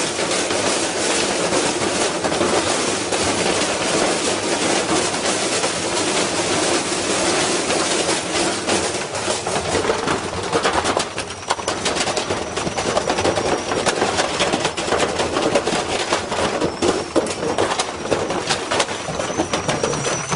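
Washing machine spinning with a heavy object loaded in the drum, the unbalanced drum banging and clattering in a rapid, unbroken stream of knocks. A faint high whine comes in about halfway through.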